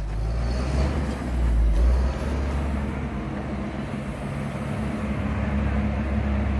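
Diesel engine of a John Deere 310 backhoe running steadily, briefly louder for a moment about two seconds in.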